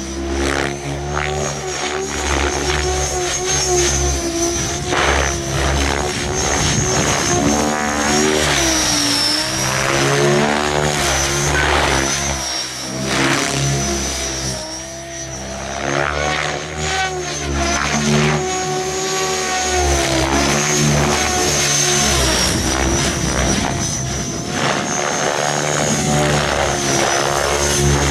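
Mikado Logo 700 electric RC helicopter flying 3D aerobatics: its rotor buzzes and swells, the pitch and loudness rising and falling as the manoeuvres load and unload it, over a high steady whine.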